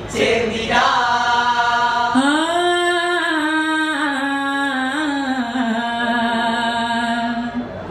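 Vattappattu, a Mappila wedding song, sung by male voices: one long drawn-out melodic line that climbs about two seconds in and then slowly slides back down.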